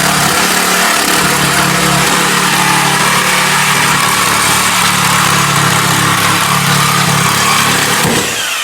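An electric motor-driven tool running steadily with a low hum under a loud hiss, then winding down in pitch near the end.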